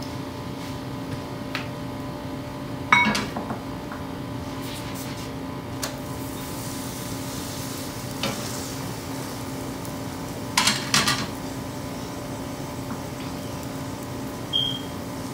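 Aloo paratha frying in ghee on a griddle pan, sizzling under a steady low hum, with a few sharp knocks and clinks of the spatula and brush against the pan and the glass ghee bowl.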